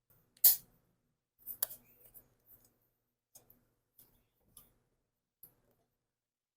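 Small handling noises while a compression tester is readied for the spark plug hole. There is a sharp click about half a second in, the loudest sound, a smaller one a second later, then faint scattered clicks and taps.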